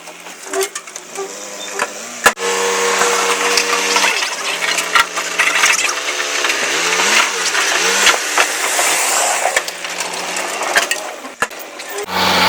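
Diesel engine of a heavy earthmoving machine, its pitch rising and falling as it works under load, over constant crunching and cracking of soil and rock with scattered sharp knocks.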